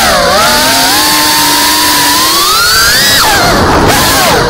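The brushless motors and propellers of a Geprc Cinelog 35 FPV drone whine, their pitch following the throttle. The pitch climbs gradually, drops sharply about three seconds in as the throttle is cut and the drone dives, then begins rising again near the end.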